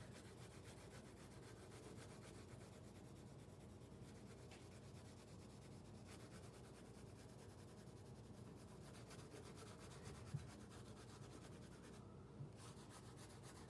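Faint, steady scratching of a green colored pencil held on its side, shading across paper in even strokes in one direction.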